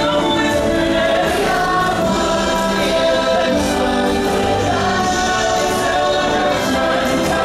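The show's musical score: a choir singing long held chords over the music.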